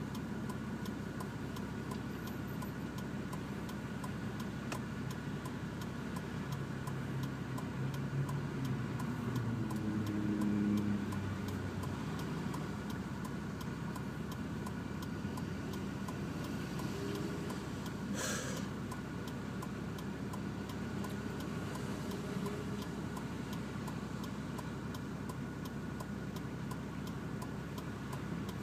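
Nissan Patrol GQ's RD28 2.8-litre turbo-diesel straight-six idling, heard from inside the cabin through a 3-inch exhaust with no mufflers, with a steady ticking. Its drone swells for a few seconds around the middle, and a single sharp click comes about 18 seconds in.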